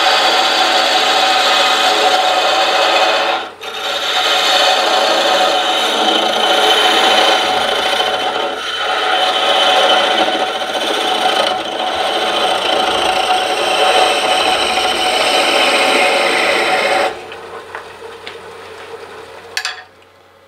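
A 1/8-inch parting tool cutting into a spinning wooden spoon blank on a wood lathe: a steady, loud scraping hiss that stops abruptly about seventeen seconds in as the piece parts off. After that only a faint running hum, and one sharp click near the end.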